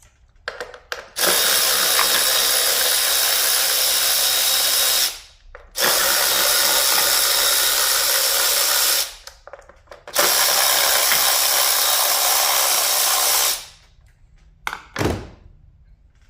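A cordless power tool runs in three steady bursts of about three to four seconds each, backing out bolts, followed by a couple of short clicks near the end.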